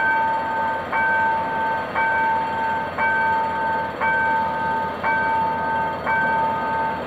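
Level-crossing warning bell ringing, one stroke about every second, each ringing on until the next: the crossing signal warning of the approaching train.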